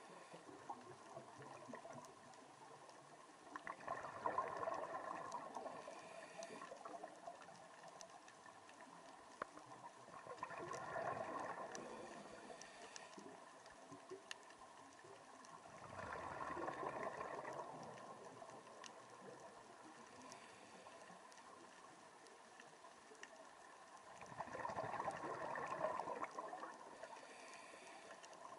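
Scuba regulator exhaust bubbling underwater as the diver breathes out, four times in a slow, regular breathing rhythm, with faint scattered clicks between breaths.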